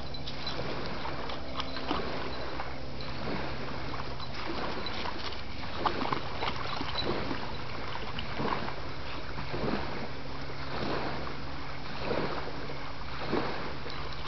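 Feist dog splashing in water as it swims and paddles after a stick: short irregular splashes about once a second, over a steady low hum.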